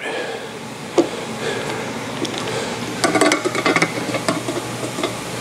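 Hand tools on steel: one sharp metallic clink about a second in, then a quick run of clicks and clinks about three seconds in, from a socket wrench being worked on the clamping fixture that seats the magnets on a Ford Model T flywheel.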